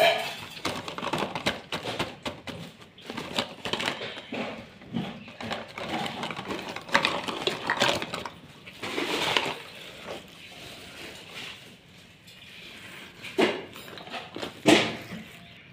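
Plastic toy pots, lids and cookware clattering and knocking against each other as hands rummage through them in a cardboard box, with a quieter spell and then two louder knocks near the end.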